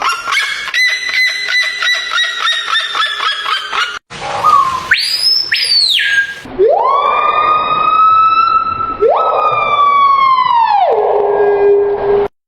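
Animal calls in separate clips: a fast series of short, pitched calls repeated about three to four times a second, then after a cut a brief call sweeping up and down, then two long siren-like wails that each rise, hold and fall away.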